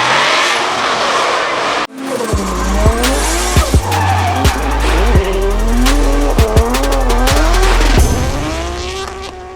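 Drift car engine revving up and down with tyres squealing, mixed with background music. There is a sudden cut about two seconds in, and the sound fades out near the end.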